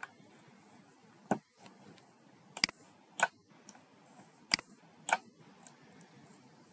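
Computer mouse clicking: several sharp, isolated clicks at irregular intervals, one of them a quick double click.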